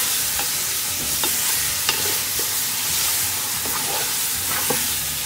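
Beef shanks and marrow bones browning in hot oil in a deep pot: a steady sizzle, with a few sharp knocks and scrapes of a utensil as the meat is stirred and turned.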